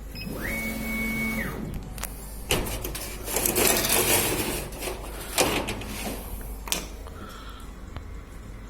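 Laser cutting machine's stepper motors moving the head: a whine near the start that rises in pitch, holds for about a second and falls as the axis speeds up, travels and stops. Then a few seconds of mechanical rattling noise with a couple of sharp clicks.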